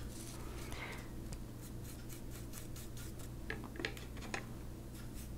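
Eyeshadow applicator rubbing powder over the edge of a card stencil onto paper: faint, scratchy strokes repeated in quick succession, a few of them sharper a little past the middle.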